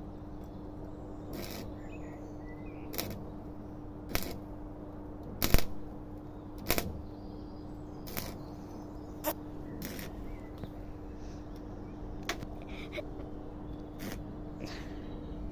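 About a dozen sharp knocks or taps at uneven intervals, the loudest about five and a half seconds in, over a steady electrical hum.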